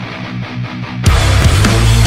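Heavy metal intro music: a quieter guitar passage, then about a second in the full band with drums comes in loud.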